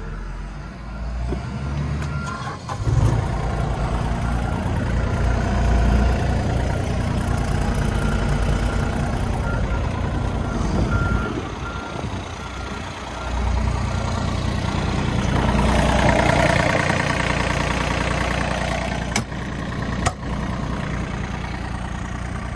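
New Holland E30SR mini excavator's diesel engine cranking and catching a few seconds in, then running steadily. An electronic beep repeats over the first half. The engine gets louder for a few seconds past the middle, and there are two sharp clicks near the end.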